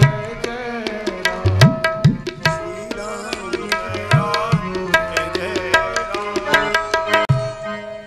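Tabla playing a brisk rhythm over held melody notes, an instrumental interlude of devotional bhajan accompaniment; several of the low bass-drum strokes slide upward in pitch.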